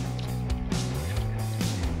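Background music with held bass notes and a guitar.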